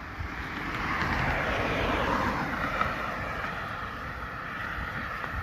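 A road vehicle passing by, its tyre and engine noise swelling to a peak about two seconds in and then easing off into steady traffic noise.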